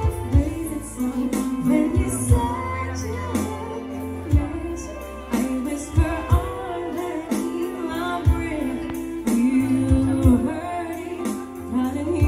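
Live acoustic band music: a woman singing over strummed acoustic guitar, with bowed violin, keyboard and sustained bass notes. A regular beat of sharp percussive hits runs under it.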